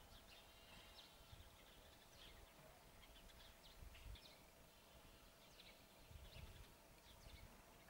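Near silence: faint outdoor background with a few faint, brief high chirps scattered through it.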